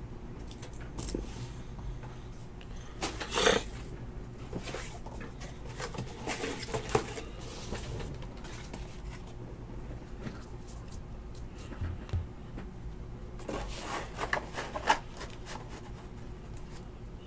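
Intermittent rustling, sliding and light clicks of trading cards and card boxes being handled and moved around on a tabletop. There is one louder swish about three and a half seconds in, and further bursts of handling around seven seconds and around fourteen to fifteen seconds.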